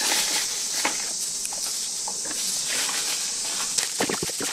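Soft taps and handling sounds as wet pickled ume plums are set down on a bamboo sieve, with a short cluster of knocks near the end. Under them runs a steady high hiss.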